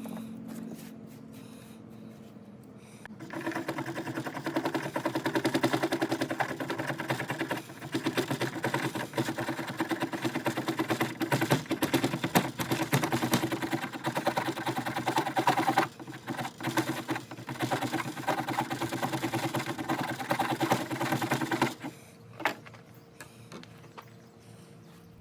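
Knife scraping shortleaf pine fatwood into fine shavings for tinder: rapid, steady scraping strokes that start about three seconds in, falter briefly around the middle, and stop a few seconds before the end.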